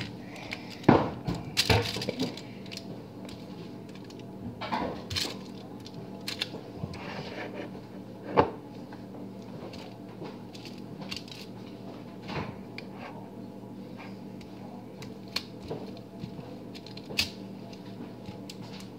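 A knife tapping and scraping on a foil-lined baking tray as ketchup glaze is spread over a meatloaf: scattered light clicks and knocks, the sharpest about a second in and again near the middle, over a steady low hum.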